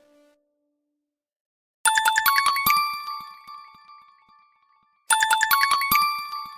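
Alcatel One Touch phone's built-in tone: a short bright chime of quick bell-like notes that rings out and fades, played twice about three seconds apart.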